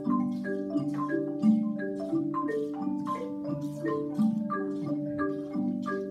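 Mallet-percussion music: a melody of struck, ringing notes at about three a second over lower held notes.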